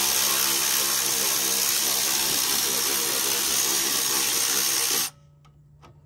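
Milwaukee Fuel long-reach cordless ratchet running steadily on a front strut bolt. It cuts off suddenly about five seconds in, followed by a few faint clicks.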